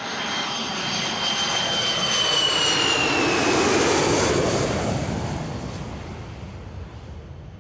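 An aircraft's engines passing: a high whine slowly falling in pitch over a rushing noise that swells to a peak about four seconds in, then fades away.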